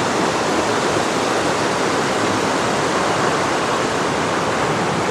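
A small rocky creek running fast over rocks close by: a steady, loud rush of water.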